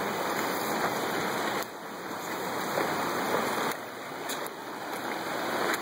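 Shallow river water running over rocks, a steady rushing that drops in level twice and builds back up.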